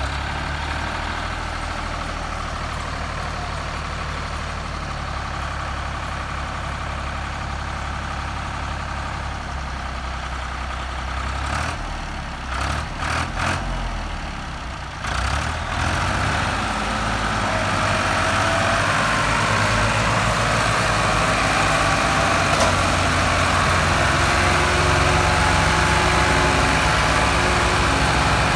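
Ford diesel tractor engines running steadily, then growing louder about halfway through as the lead tractor pulls under load to tow a stuck tractor and its loaded fodder trolley out of the mud by a chain.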